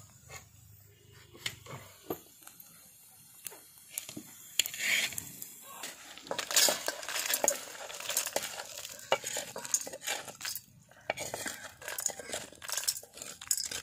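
Roasted dry red chillies, peanuts and whole spices being scraped out of a clay pot into a steel bowl: scraping and rattling with sharp clinks. Sparse clicks in the first few seconds, then a busy, continuous run from about five seconds in.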